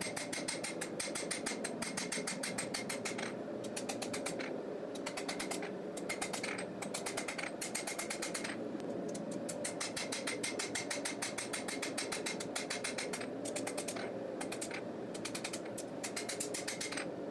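Rapid runs of light hammer blows on hot knife steel on an anvil, several strikes a second, with short pauses between runs and a steady hum underneath.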